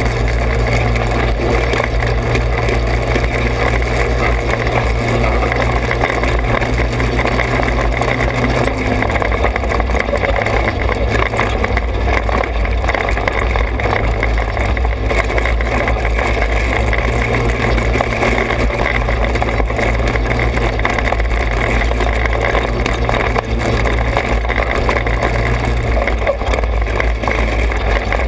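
Trailmaster 200 XRX off-road go-kart's small engine running steadily under way, with tyre and trail noise; the engine note changes about nine seconds in and again a couple of seconds before the end.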